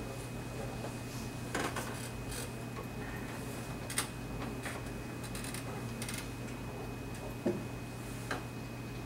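Steady low hum with a faint high tone, broken by a few short clicks; the sharpest are about four seconds in and about seven and a half seconds in.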